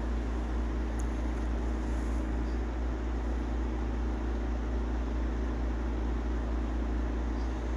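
Steady low mechanical hum with an even hiss, a constant background drone that does not change.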